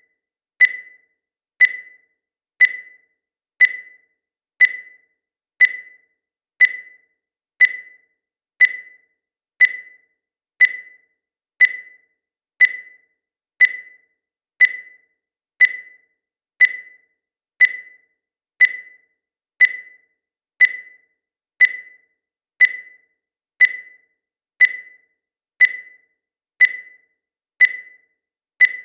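Digital countdown timer beeping once every second: a short, high-pitched electronic beep that fades quickly, repeated at an even pace.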